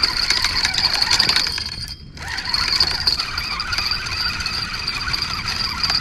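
Spinning reel whirring as line is cranked in against a hooked catfish, with a fine rapid ticking over a steady high whine; it stops briefly about two seconds in, then runs on.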